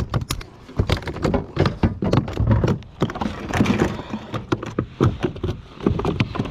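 Irregular knocks, clacks and rubbing of gear being handled on the hard plastic deck of a fishing kayak, close to the microphone.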